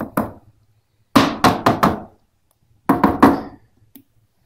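A stick knocking against the rim of a black rubber mixing bucket in three quick runs of three or four sharp knocks each.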